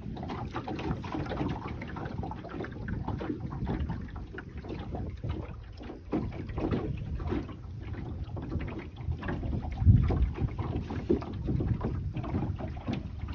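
Wind buffeting the microphone and water lapping along the hull of an Oughtred Penny Fee wooden sailboat under way in gusty wind, with a stronger gust about ten seconds in.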